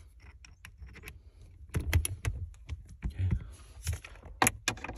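Scattered clicks, taps and light metallic rattles of a socket on an extension being fitted into a cordless drill and the tool being handled, with a few sharper knocks about two seconds in and near the end. The drill's motor is not running.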